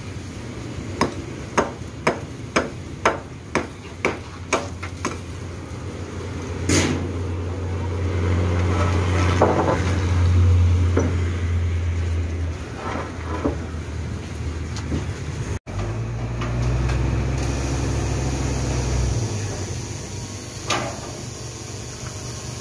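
A quick run of about nine sharp knocks, roughly two a second, as concrete floor planks are worked into place, followed by a few single knocks. Over them the truck-mounted crane's engine runs low and steady for a few seconds at a time.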